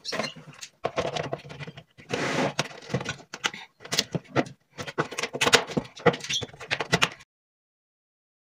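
A clear plastic storage box and its plastic lid being handled and fitted down over a wooden pressing board, giving irregular plastic scrapes, knocks and clicks. The sound cuts off suddenly about seven seconds in.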